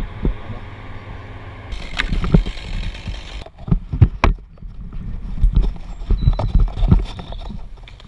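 A run of uneven knocks and thumps as a tree climber moves about among beech branches, with the gear and helmet camera bumping against the wood. A steady hum underlies the first few seconds and cuts off suddenly.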